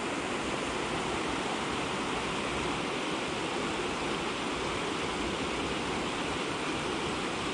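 Steady rush of water pouring over a small low-head dam spillway.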